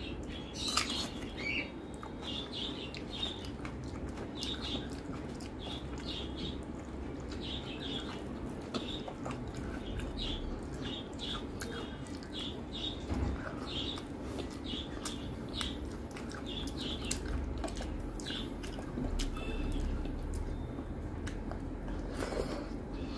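Close-miked eating sounds of a person chewing a mouthful of rice and dal: repeated wet mouth clicks and smacks, a few a second, with a low steady hum underneath.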